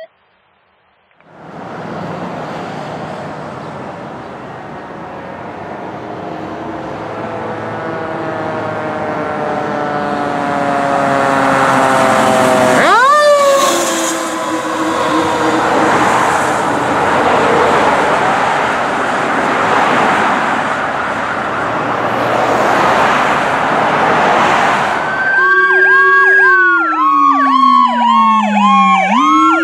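A 2004 Pierce Saber fire engine responding with its siren on, approaching and passing. The siren's pitch falls slowly and then sweeps sharply up around the pass, over the engine and tyre noise. Near the end, a siren with fast, repeating up-and-down sweeps takes over.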